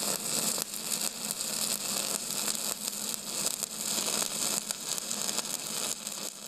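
Steady crackling hiss, like static, strongest in the high range, with a faint steady hum underneath; it dies away right at the end.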